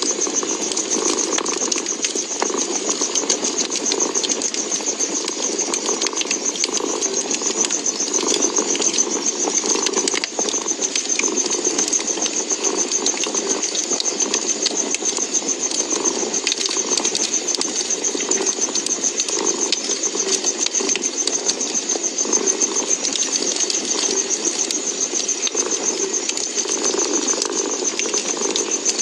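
A cat purring steadily, swelling and fading with each breath, over the scattered pops and crackles of a fireplace fire.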